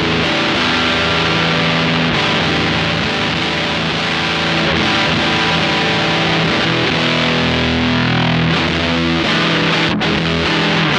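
Stratocaster electric guitar played through a Silver Keg fuzz pedal: fuzz-distorted chords and notes ringing out and sustaining, with a brief break about ten seconds in before new notes.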